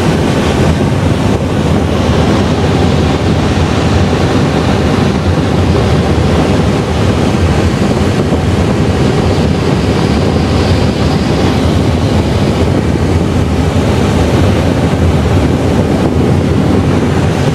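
Steady rush of air around a sailplane's cockpit in flight, heard as loud wind noise on the microphone.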